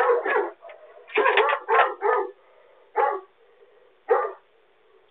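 Pet dog barking at the doorbell, a quick run of barks that then space out to single barks about a second apart, heard through a Ring doorbell camera's microphone.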